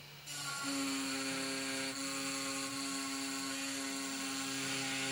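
Desktop CNC machine running, its brushless spindle motor giving a steady whine over a high hiss. It starts just after the beginning and holds steady.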